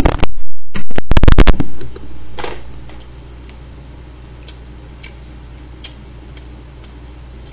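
A loud burp that overloads the microphone into harsh distortion, cutting in and out for about a second and a half. A weaker trailing rumble follows at about two seconds in, then a few faint clicks.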